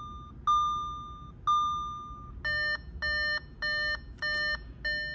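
Audi S4 instrument cluster warning chimes: two single chimes about a second apart that fade out, then five short beeps in quick succession. The beeps go with the cluster's warning to turn off the ignition before leaving the car, as the battery is discharging.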